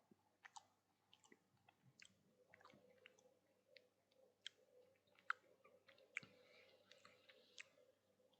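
Faint chewing of pan-seared saganaki cheese, with soft, irregular mouth clicks.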